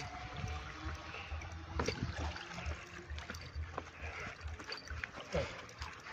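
Gentle sea water lapping and trickling at the water's edge, with a few faint clicks and knocks.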